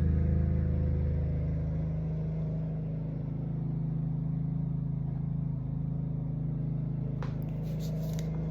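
Steady low mechanical hum made of several fixed tones, with a few sharp clicks near the end.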